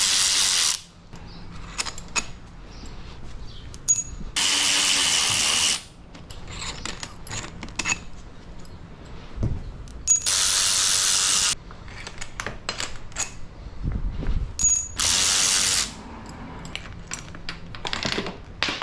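Cordless electric ratchet spinning out the handlebar clamp bolts on a pit bike, in four short whirring runs of one to one and a half seconds each. Light clicks and clinks of tools and loose bolts come between the runs.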